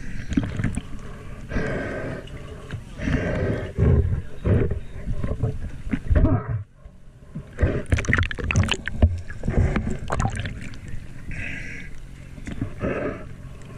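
Water sloshing and splashing against a camera held at the surface of the sea in irregular surges, going muffled for a moment about six and a half seconds in.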